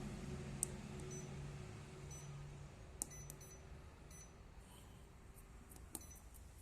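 Treadmill console beeping as its keypad buttons are pressed: several short, high beeps at irregular intervals. A low hum underneath fades out before the middle.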